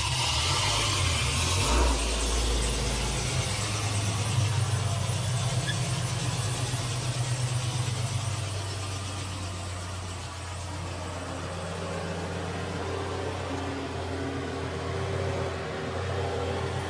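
Cadillac CTS-V's supercharged V8 running at a low, steady idle while the car creeps around at walking pace, with a short, louder low rumble about two seconds in.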